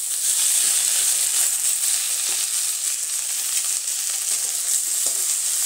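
Diced capsicum, onion and carrot sizzling in hot ghee in a metal kadai, a steady frying hiss just after the capsicum goes in, with a couple of faint taps.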